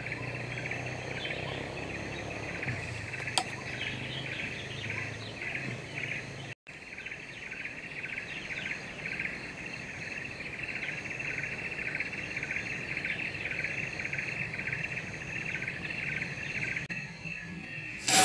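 Steady chorus of insects, a buzz that pulses several times a second, broken by a brief cut about six and a half seconds in. Right at the very end a sudden loud sound starts, with a ringing after it.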